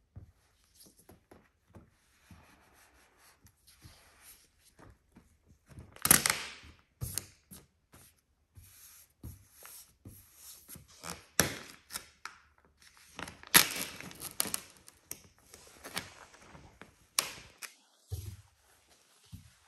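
Matte black vinyl decal film crackling and rustling as it is lifted, flexed and smoothed down on a car bonnet with a microfiber towel. There are a few sharper, louder crackles, the loudest about six and thirteen seconds in.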